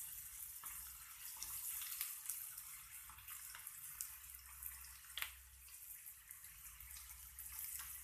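Chopped onion and green chillies frying in a kadhai on high heat, the onion browning. A steady sizzle with scattered sharp pops, the loudest about five seconds in.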